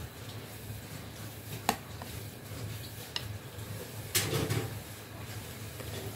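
A metal spoon against a glass bowl of watermelon hwachae: one sharp clink about a second and a half in, a few fainter taps, and a longer noisy scoop through the icy punch a little after four seconds.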